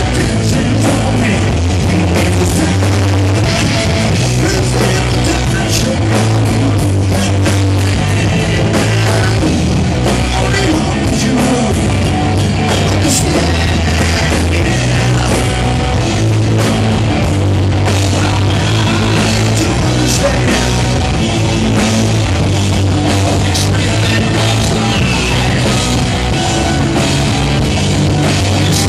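Hard rock band playing live, loud and without a break: electric guitar, bass and drum kit, with a singer, heard from the crowd.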